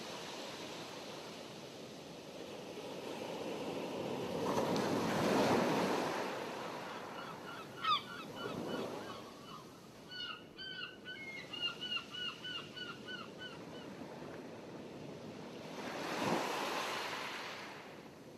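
Sea water washing in slow swells, with a rapid run of short, repeated bird calls in the middle.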